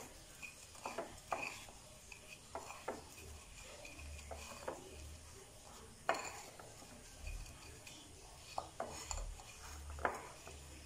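Hands rolling banana pieces in breadcrumbs on a ceramic plate: soft rustling of the crumbs with scattered light clicks and taps against the plate, the sharpest about six seconds in.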